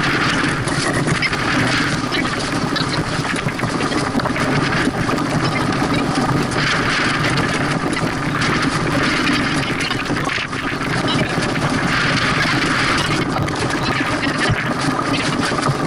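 Wind on the microphone and water rushing along the hull of a small sailboat under way, played back at eight times speed, so it runs as a steady, dense, fast-chattering noise.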